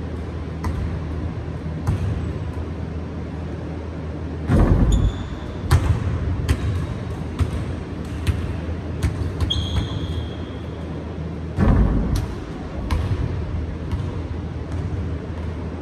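A basketball bouncing irregularly on a hardwood gym floor, with two heavier thumps and a few short high sneaker squeaks, over a steady low hum.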